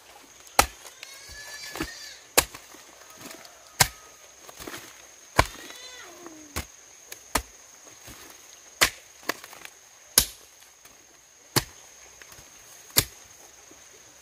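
A blade chopping into wood in steady, even strokes, about one sharp strike every one and a half seconds, with a few lighter taps in between.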